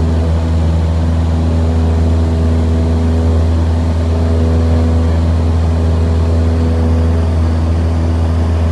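Steady drone of a Cessna 172's piston engine and propeller, heard from inside the cabin.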